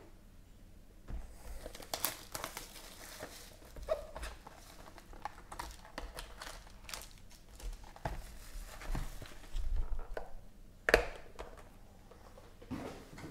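Foil-wrapped trading card packs crinkling as they are handled in and pulled from a cardboard hobby box, with scattered taps of cardboard and one sharp knock about eleven seconds in.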